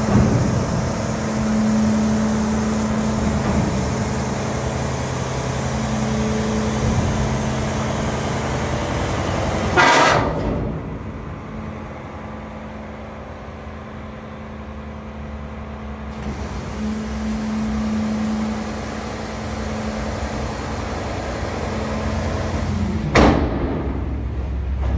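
A Mack rear-loader garbage truck running steadily, with a droning hum and a held tone. There are two short, loud rushing noises, about ten seconds in and again near the end.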